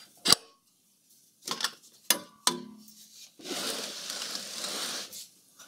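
A sharp click, then a few clunks of metal with a short ring, then about two seconds of steady rubbing rumble as a rotary table carrying bench grinders is turned round.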